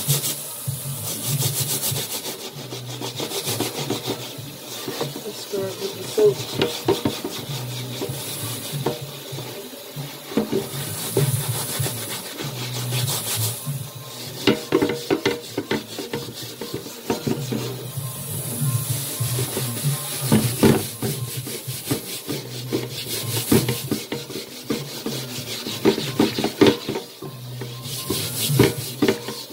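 A scrubber rubbing and scraping over a greasy cooking pan under a running kitchen tap. The strokes come in repeated bursts.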